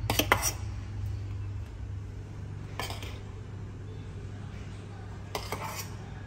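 A metal spoon clinks and scrapes against a small stainless steel saucepan and a ceramic bowl while porridge is spooned out: a quick run of clinks at the start, one about three seconds in, and a couple more near the end, over a steady low hum.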